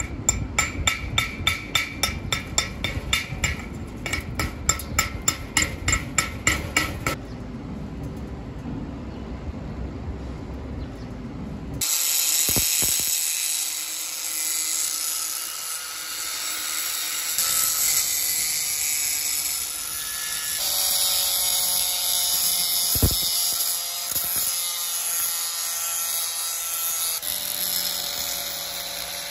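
A rapid run of sharp knocks, about three a second, for the first seven seconds. About twelve seconds in, an angle grinder starts grinding down a steel weld bead, running steadily, its whine shifting in pitch a few times as it bears on the metal.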